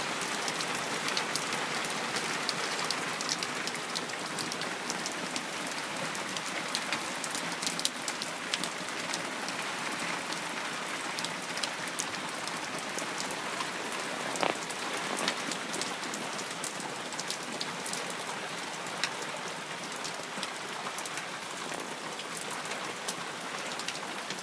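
Heavy rain falling steadily: a constant hiss with many sharp ticks of single drops hitting close by.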